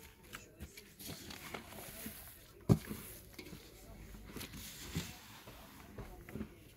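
Gloved hands kneading and pressing sticky glutinous rice flour dough in a stainless steel bowl: irregular soft rustling with scattered knocks, the loudest a sharp thump about two and a half seconds in and a smaller one about five seconds in.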